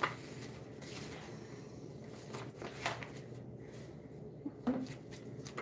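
Paper rustling and crinkling as a few sheets and an envelope are handled and unfolded, in several short soft strokes.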